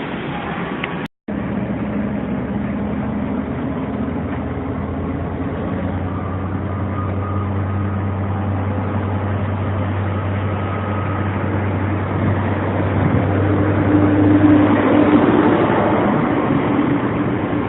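Chiltern Main Line train hauled by a Class 67 diesel locomotive running, a steady rumble of wheels and engine. It cuts out for an instant about a second in, and a low engine hum comes in partway through as the sound swells toward the end.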